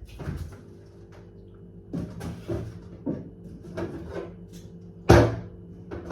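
A string of short knocks and bumps of household handling, with one loud sharp thump about five seconds in, over a steady low hum.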